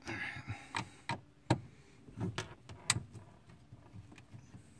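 Screwdriver and hands working at the radio screws in a plastic car dashboard: a brief scraping rustle, then a series of sharp clicks and taps.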